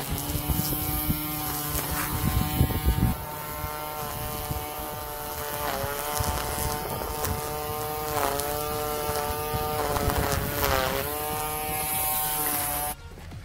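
Electric string trimmer running with a steady whine, the pitch sagging briefly several times as the line bites into grass along the path edge. It cuts off suddenly near the end.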